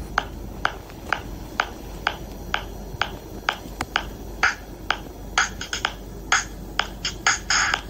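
Sharp snap-like clicks in a steady beat, about two a second. In the second half, extra quicker clicks fall between the beats, and a longer burst comes near the end.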